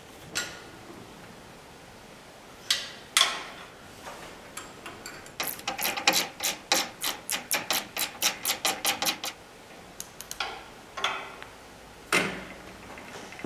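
Metal-on-metal clicks of a wrench working the bolts of a helicopter gearbox mount: a few single clicks, then a quick even run of about four clicks a second lasting about four seconds, then a few more single clicks near the end.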